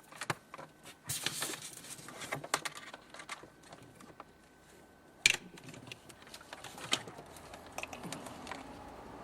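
Scattered clicks, taps and a brief rustle of hands handling refrigerator parts during a repair, with one sharp knock about five seconds in.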